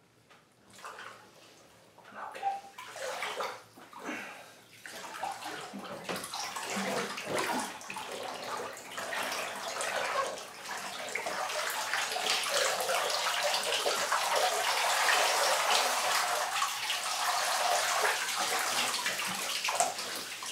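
Bathwater sloshing and splashing in scattered bursts as a person in soaked clothes moves and rises in a full tub, then a steadier, louder rush of splashing, streaming water through the second half.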